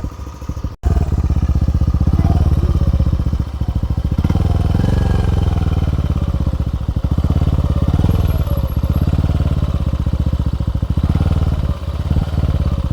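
Motorcycle engine running through a JVT V3 adjustable aftermarket exhaust pipe with its valve closed all the way, idling with a steady pulsing beat and revving up briefly about four to five seconds in. The sound is full and slightly loud, though not very noisy.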